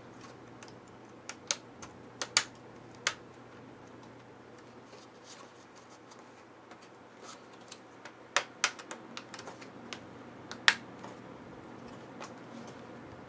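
Plastic laptop screen bezel being snapped back onto the display lid: scattered sharp plastic clicks and snaps as its clips seat. The clicks come in two clusters, a few in the first three seconds and the loudest between about eight and eleven seconds in.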